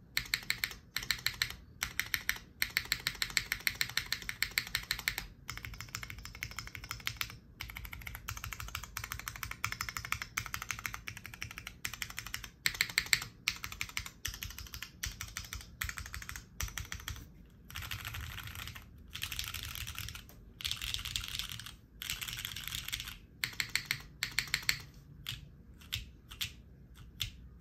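Fast typing on a Kohaku R2 custom mechanical keyboard with Cherry Nixie switches, an aluminium leaf-spring plate and GMK Nord keycaps: quick runs of key clicks broken by short pauses. Near the end the strokes slow to a few separate presses.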